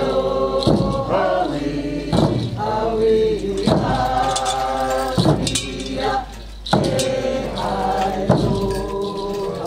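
Group of voices singing a chant-like song in long held, sliding notes, with a sharp beat about every one and a half seconds.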